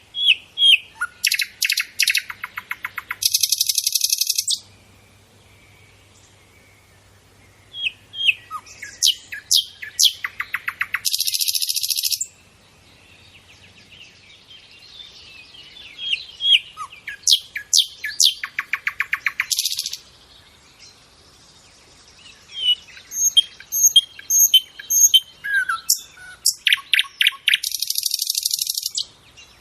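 Nightingale singing four separate song phrases with short pauses between them, each a run of quick repeated notes that ends in a rapid buzzing trill.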